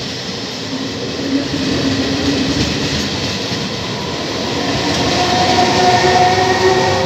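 Electric passenger train's coaches rolling past close by, a steady rumble of wheels on rails with some clickety-clack. In the last couple of seconds a whine of several steady pitches joins in and the sound grows louder.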